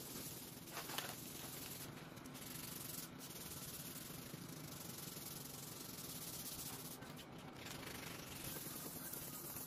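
Hand sanding of dried wood filler on a wooden tabletop with a sanding sponge: a continuous scratchy rubbing, back and forth.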